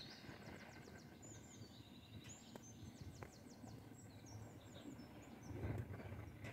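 Faint chirps and short rapid trills of small birds, scattered throughout, over a steady low outdoor rumble.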